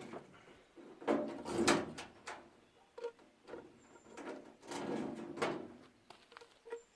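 Parts and hand tools clattering and scraping while a washing machine is being taken apart: two longer rasping, rattling stretches, about a second in and again about four seconds in, with scattered clicks and knocks between.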